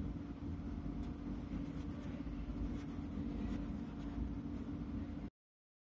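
Felt-tip marker scratching on paper in short strokes as lines and a word are written, over a steady low hum. The sound cuts off suddenly to dead silence about five seconds in.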